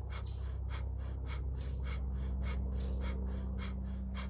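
Quick, forceful rhythmic breathing, about three sharp breaths a second, inhaling as the shoulders shrug up and exhaling as they drop in a yogic shoulder-shrug exercise. A steady low hum runs underneath.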